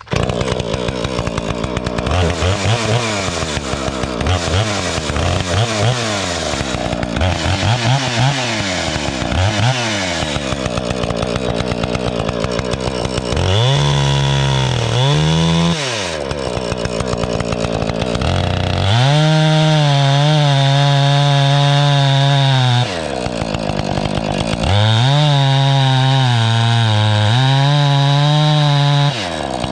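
Two-stroke chainsaw with a freshly sharpened chain, blipped at the throttle several times, then held at full throttle in two long spells of about four seconds each, dropping back to idle between. The long steady spells are the saw cutting into a log's end grain.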